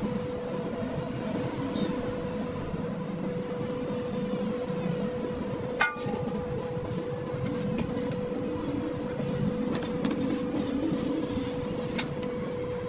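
A machine running with a steady hum over a low rumble, and a single sharp knock about six seconds in.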